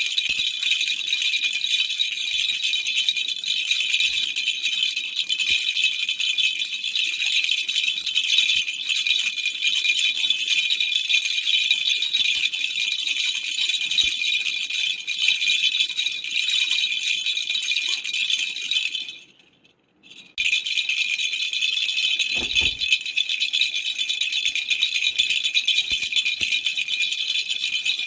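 Baby's rattle toy shaken without a break in a fast, high-pitched rattling patter. It stops for about a second roughly two-thirds of the way through, then starts again.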